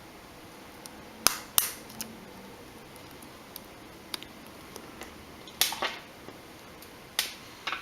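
Several sharp clicks of small parts inside a Samsung Galaxy Nexus phone being snapped and pressed back into place during reassembly, coming at irregular intervals.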